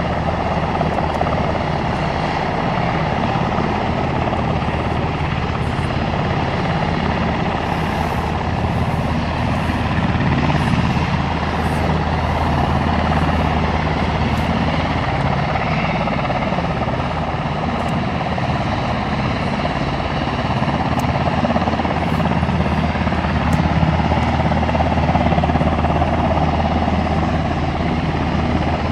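Aircraft engine running steadily at a constant pitch, a low hum under a wide rushing noise.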